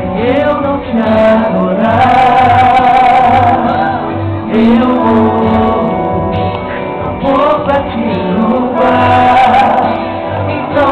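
A woman singing a Portuguese gospel worship song live into a microphone over amplified backing music, in sung phrases with long held notes.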